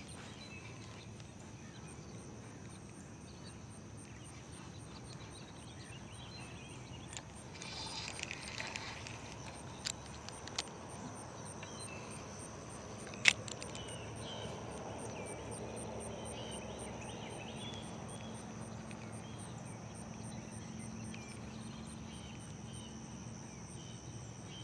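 Outdoor summer pond ambience: insects chirping in a steady, high-pitched, evenly pulsed drone throughout, with a few sharp clicks around the middle.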